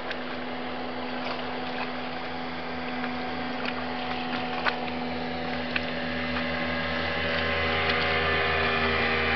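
Boat motor running with a steady hum, getting louder over the last few seconds, with a few faint ticks.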